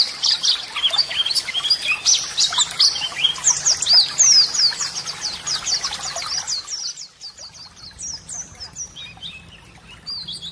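Many birds chirping together, a dense chorus of quick, high, downward-sweeping chirps that turns quieter and sparser about seven seconds in.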